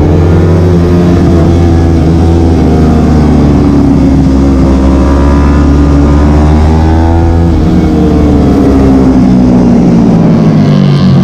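Yamaha R3 parallel-twin sport bike engine under hard riding, its pitch falling over the first few seconds as the revs drop into a corner and climbing again after about seven seconds as it accelerates out. Heavy wind rush sits on the onboard microphone.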